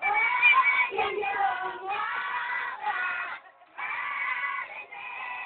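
A crowd of many voices, children among them, singing a chant together in short phrases of about a second each, with a brief pause about three and a half seconds in: the chanting of a Konyak log drum pulling.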